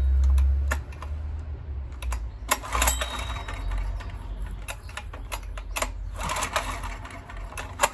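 Honda EX1000 portable generator engine running, dropping sharply in revs about a second in and then running unevenly at low speed, coughing and spluttering on half choke, with sharp clicks from the choke lever being worked. The owner takes the rough running for a fuel problem.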